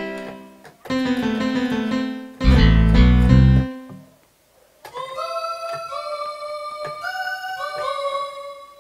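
Sampled keyboard sounds played live from a MIDI controller through Kontakt. Held chords come first, then a few loud low bass notes about two and a half seconds in. After a short gap, from about five seconds, a melody of held single notes plays in a different sound.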